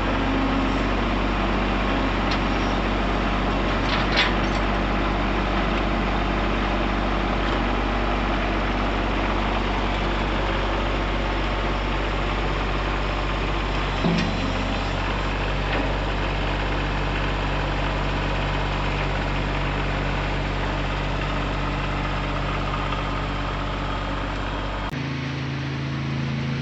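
A steady engine running, with a sharp knock about four seconds in and another about fourteen seconds in.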